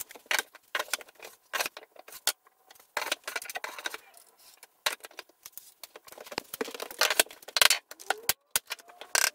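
Irregular knocks, clacks and scrapes of wood flooring pieces being handled and set down, mixed with footsteps on wooden stairs.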